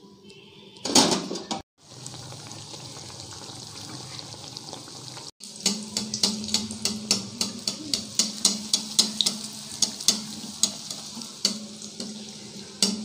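Hot oil crackling and popping in irregular sharp pops over a steady low hum, setting in about five seconds in. A short clatter comes about a second in.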